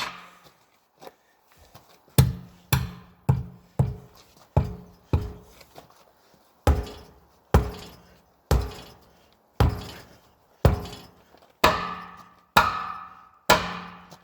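About fourteen hammer blows on a tire being forced onto a steel wheel rim, driving the bead over the rim edge. Each blow is a sharp thunk with a short metallic ring. The first six come quickly, then the rest fall about once a second.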